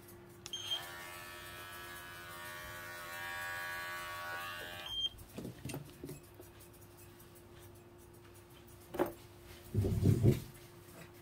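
Small electric pet hair trimmer switched on with a click, running steadily for about four seconds, then clicked off. Near the end come a knock and a few louder low thuds.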